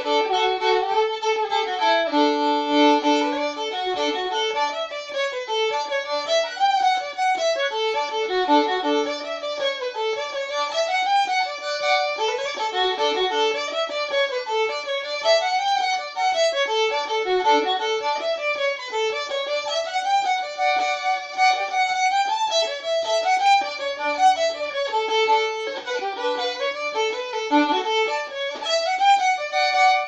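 Solo fiddle playing an old-time New England dance tune, a continuous run of quick bowed notes with held lower notes sounding under the melody.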